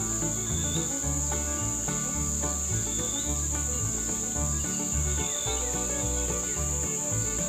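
A steady high-pitched insect drone, such as cicadas or crickets, over background music with a stepping bass line. A few short chirps near the top of the sound come and go.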